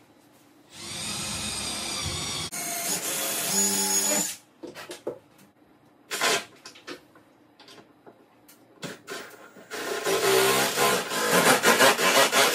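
Cordless drill running in two bursts of a few seconds each, one starting about a second in and one near the end, driving a screw through one cabinet's side into the next to fasten them together. Small clicks and knocks fall between the bursts.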